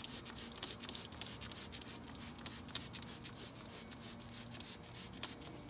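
Trigger spray bottle pumped rapidly, squirting coil cleaner into a radiator's fins: an even run of short spraying hisses, about four a second.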